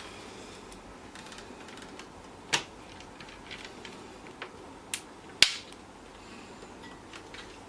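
Sharp clicks and taps of small screws and a screwdriver against a laptop's plastic case during reassembly: three distinct clicks, the loudest about five and a half seconds in, with fainter ticks between.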